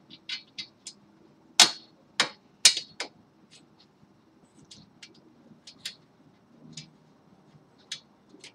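Small steel screws and nuts clicking and clinking against the metal frame of a 3D printer kit as they are handled and fitted by hand. The ticks come irregularly, with a few sharper, louder clicks about two to three seconds in.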